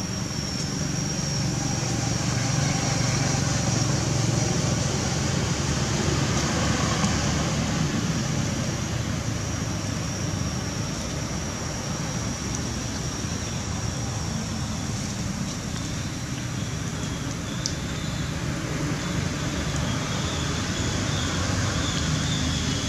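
Steady outdoor background noise: a low rumble like distant road traffic, with a thin, steady high-pitched whine over it that drops to a lower whine about three-quarters of the way through.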